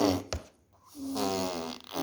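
Toddler blowing raspberries, making fart sounds with the lips: a short buzz at the start, then a longer pitched one about a second in.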